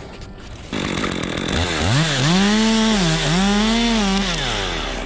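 Two-stroke chainsaw revved from idle up to full throttle twice, dipping briefly between, then dropping back to idle.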